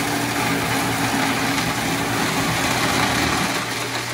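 Electric snow cone machine's motor running, its blade shaving the ice in the hopper: a loud, steady grinding over a low hum that eases near the end.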